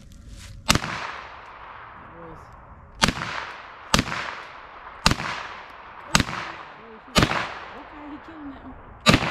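A scoped rifle fired seven times at a steady pace of about one shot a second, each sharp crack trailing off in a short echo.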